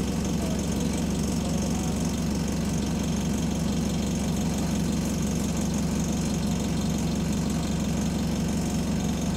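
Bus diesel engine idling at a standstill, heard from inside the saloon, with a steady low drone and a fast, even flutter as parts of the bus shake with the engine.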